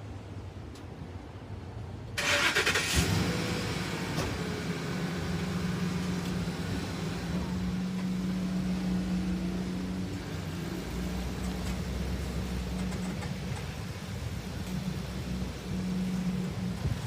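Aircraft engine noise that starts abruptly about two seconds in, then settles into a steady low hum with a whine falling slowly in pitch.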